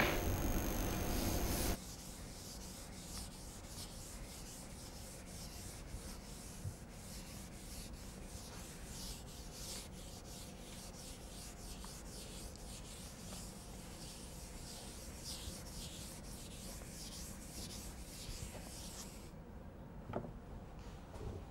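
A chalkboard being wiped clean: a long run of repeated rubbing strokes across the board that stops a couple of seconds before the end. A louder steady hum with a high whine cuts off about two seconds in, and a light tap follows near the end.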